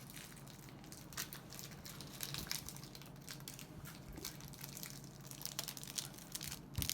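Plastic Kit Kat wrapper crinkling and crackling in the hands as it is worked open, with a low thump near the end.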